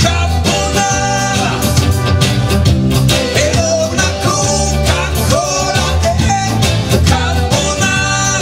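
Upbeat pop-rock song in an instrumental passage: electric guitar and bass guitar over a steady beat, with a melody line above.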